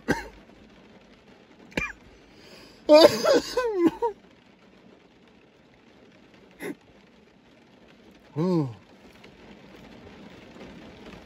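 A man coughing hoarsely and clearing his throat after a hit of cannabis concentrate (a dab): a short cough about two seconds in, a longer rough fit from about three to four seconds in, then a short low hum near the end.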